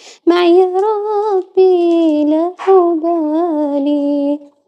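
A girl's unaccompanied voice singing the closing phrases of an Arabic nasheed: three long, wavering melodic phrases with short breaths between them. The voice stops near the end.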